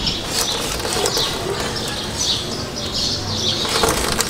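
Dirty, dry drive chain of a Honda Hornet running over the rear sprocket as the rear wheel turns, making repeated high squeaks over a rough chatter. The noise comes from the chain being dry and dirty, not from the bent sprocket plate.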